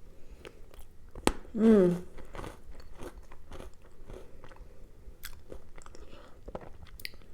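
Close-up crunchy chewing of chocolate pudding mixed with pretzels and peanuts, with many small crunches throughout. About a second and a half in there is a short hummed "mmm" of enjoyment.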